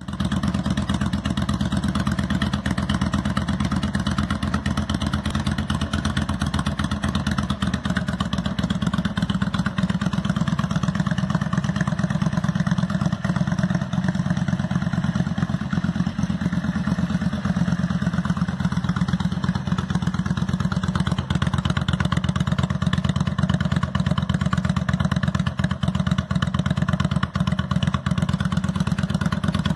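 Yamaha DragStar 650's air-cooled V-twin engine idling steadily through its twin chrome exhaust pipes.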